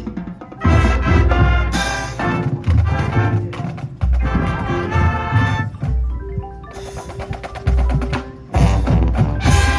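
High school marching band playing its show music, with percussion to the fore: heavy repeated bass-drum hits under sustained pitched notes.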